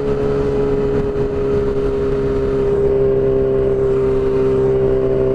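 Yamaha R6 inline-four engine through a shorty exhaust, running at steady revs on the move, its pitch easing down slightly over a few seconds.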